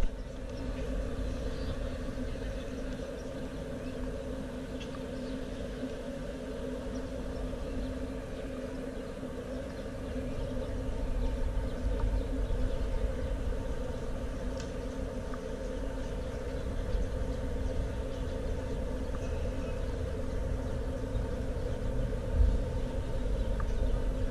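City street ambience: low traffic rumble under a steady hum, with a few faint clicks.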